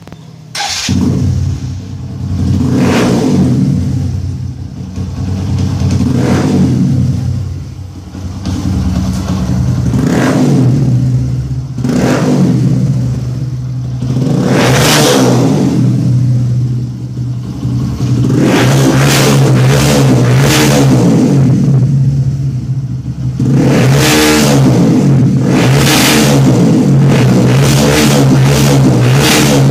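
Bajaj V15's single-cylinder engine revved repeatedly through a short aftermarket slip-on performance exhaust, blipped up and dropping back every few seconds. About two-thirds through it is held at higher revs, then comes a quick run of throttle blips near the end.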